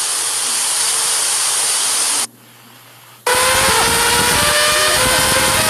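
Loud static hiss, cutting off about two seconds in and returning about a second later with wavering, warbling distorted tones over the noise.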